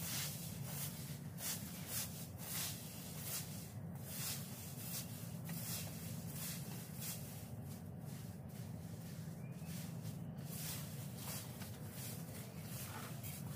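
Leaf rake sweeping fallen leaves across a grass lawn: repeated scratchy, rustling strokes, about one or two a second, over a steady low hum.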